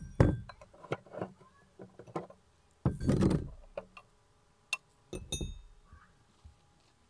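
Metal parts of a hand-crank meat grinder being taken apart and set down: the perforated grinding plate and the cross-shaped cutting blade knock and clink against the grinder and table. Two ringing metal clinks come about five seconds in.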